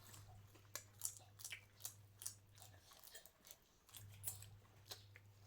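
Faint, scattered clicks and crunches of someone eating, over a low steady hum that stops for about a second midway.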